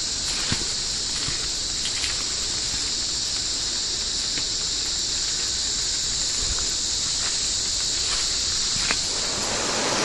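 Rainforest insect chorus, a steady high-pitched hiss, with a few scattered light footsteps on the trail.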